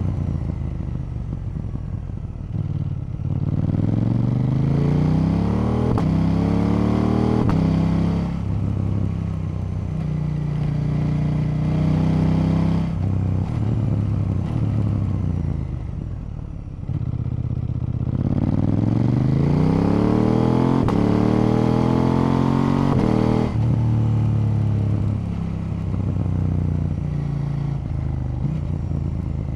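KTM 890 Duke's parallel-twin engine being ridden: twice it pulls hard with the pitch climbing steadily, then drops back as the throttle eases, running at a steadier, lower note in between.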